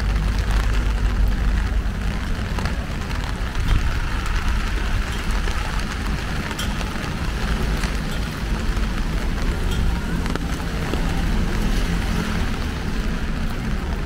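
Steady rain falling, with a low, steady rumble underneath and a few sharp ticks of drops.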